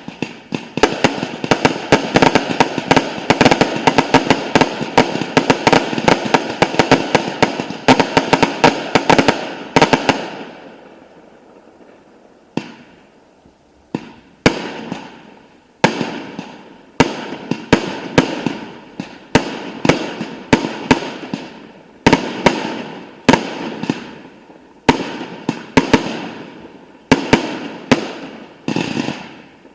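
Fireworks display: a dense barrage of bangs and crackling for about the first ten seconds that dies away, then a run of single bangs about one a second, each followed by a trail of crackle.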